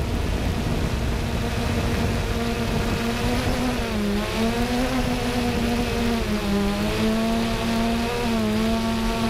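3DR Solo quadcopter's motors and propellers running in flight: a steady buzzing hum whose pitch dips and rises back several times as the drone maneuvers, over a low rumble.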